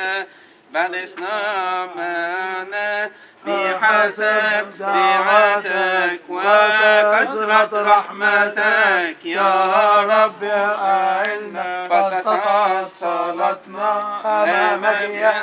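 Coptic Orthodox liturgical chant sung by a male voice, an ornamented melody that winds up and down on long held syllables, with brief breaths about half a second and three seconds in.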